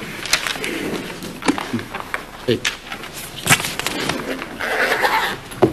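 Indistinct voices murmuring, with scattered sharp clicks and knocks; the loudest knock comes about three and a half seconds in.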